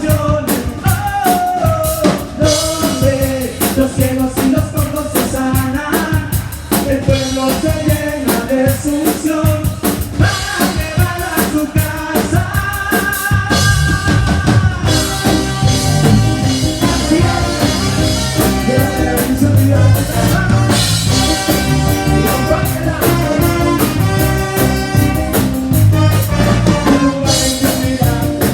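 Live band music with a drum-kit beat and a melody line over it.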